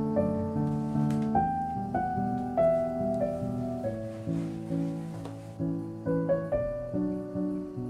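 Background piano music: held chords and notes that change about once a second.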